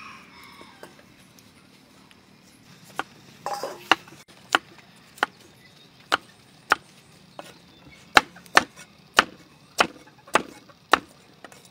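A knife chopping peeled potatoes on a thick wooden chopping block: about fourteen sharp knocks, starting about three seconds in and coming a little faster in the second half.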